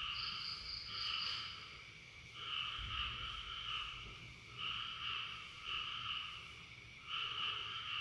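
An animal calling in a repeated pattern: about six bursts, each under a second to about a second long, with short pauses between, each burst holding a high and a lower pitch together.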